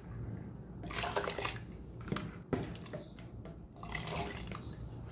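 Soaked basmati rice and its water tipped from a bowl into a steel pot of boiling water, splashing in two pours, about a second in and again near the end, with a couple of sharp knocks in between.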